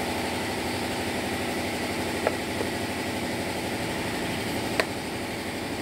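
An engine idling steadily, with two light clicks as a plastic fuse holder is handled.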